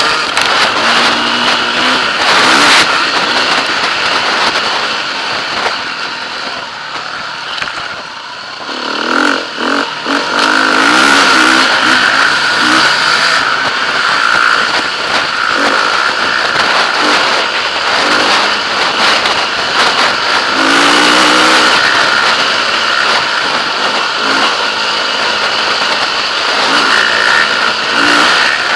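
KTM 350 EXC-F enduro bike's single-cylinder four-stroke engine revving up and down under way, with heavy wind rush on the helmet-mounted camera. The engine eases off and drops in loudness about a quarter of the way through, then pulls hard again.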